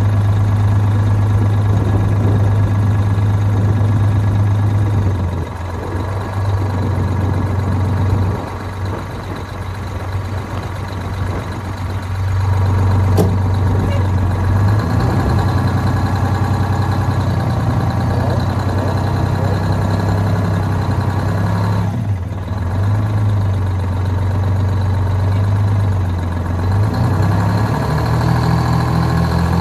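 1983 Thibault ladder fire truck's engine running at idle, a steady low hum whose level and pitch shift several times, dipping briefly and stepping up to a higher tone near the end.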